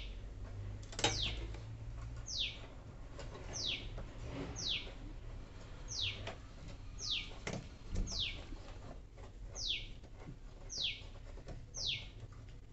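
A bird calling over and over: a short, high chirp falling steeply in pitch, about once every second and a bit, over a faint low hum, with a single click about a second in.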